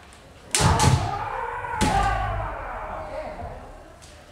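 Kendo sparring in a wooden-floored dojo hall: three sharp strike sounds, about half a second, one second and two seconds in, bamboo shinai cracking on armour together with feet stamping on the wooden floor. Kiai shouts echo through the hall after the hits.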